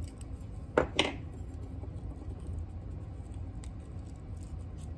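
Two quick, sharp scraping clicks about a second in, as a bare razor blade pries and scrapes at an antique light socket, over a steady low hum.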